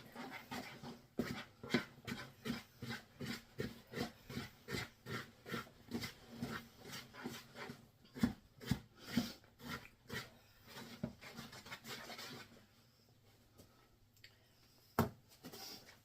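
Danish dough whisk stirring a wet bread dough in a bowl, in even strokes about two a second that stop about twelve seconds in. A single sharp knock near the end.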